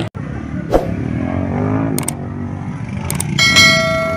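Racing motorcycle engines running around a muddy motocross track, mixed with spectators' voices, with a brief cut-out just after the start. Near the end come a few clicks and a ringing bell chime from a subscribe-button animation.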